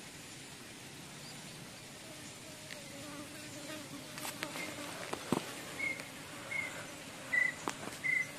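A flying insect drones faintly near the microphone. It gives way to the handling of a fishing rod and reel being wound in on a hooked fish: sharp clicks and knocks, the loudest about halfway through, and a short high chirp repeating about every two-thirds of a second.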